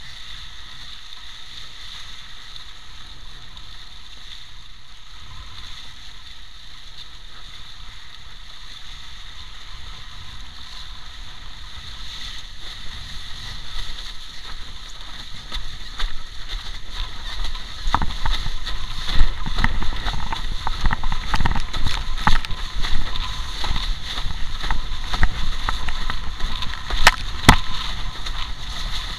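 Water rushing and slapping against a windsurf board under sail. The sound grows louder about halfway through as the board speeds up towards planing, with sharp splashes hitting the hull from then on.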